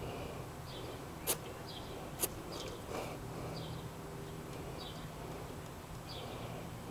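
A small bird chirping over and over, about once a second, over a faint steady low hum, with two sharp knocks a second or so in and again about a second later.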